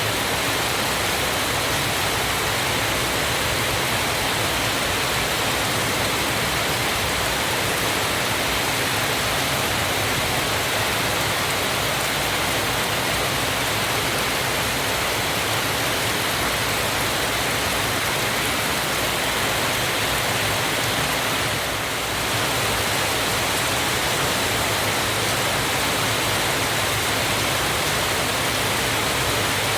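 Waterfall: water pouring and splashing in a steady, even rush, with a brief slight dip in level about three-quarters of the way through.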